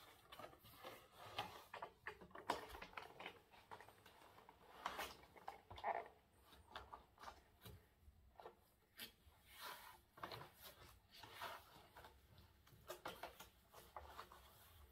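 Faint, irregular scratching and rustling of a cat's claws and body against a corrugated cardboard scratcher as it rolls and plays inside it.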